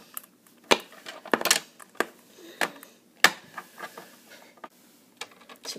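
Small plastic toy figure being handled against a plastic playset: a string of irregular sharp clicks and taps, about half a dozen, with quiet between.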